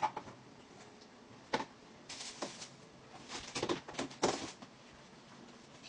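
Scattered light clicks and knocks with a few short rustling or splashing noises, from kitchen utensils and food being handled.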